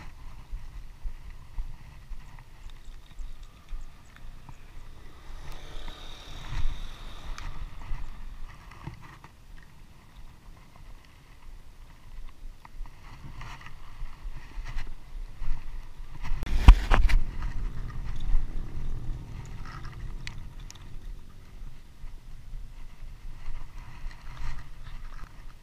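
Close handling noise: rustling and small knocks over a steady low rumble, with one sharp knock about two-thirds of the way through.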